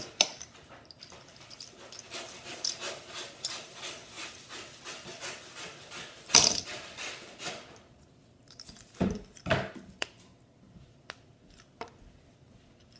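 A fidget spinner being handled: a run of light rubbing and scraping strokes, a louder scrape about six seconds in, then a few soft knocks and sharp clicks.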